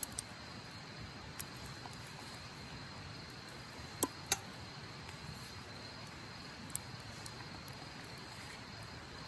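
Faint, steady high trill of crickets in the night background, broken by a few sharp clicks. The two loudest clicks come close together about four seconds in.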